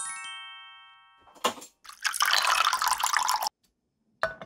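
Cold water poured into a glass measuring cup for about a second and a half, followed by a short glass clink near the end. Before the pour, a bright ringing chime fades away during the first second.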